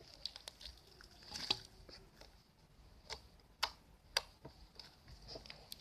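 Slime being squeezed and kneaded between the fingers, giving scattered small wet clicks and pops, the sharpest a little past the middle.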